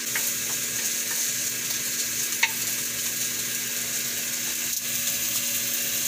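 Pieces of pork fat sizzling steadily in a nonstick wok as they render out their oil. A wooden spatula stirs them, giving a few light taps against the pan.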